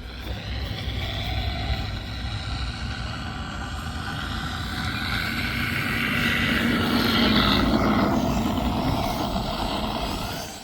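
FMS P-51D Mustang RC model flying by, its G.T. Power onboard sound unit playing a simulated warbird piston-engine sound over the electric motor and propeller. It grows louder to a peak about seven to eight seconds in as the plane passes, then fades, with wind rumble on the microphone underneath.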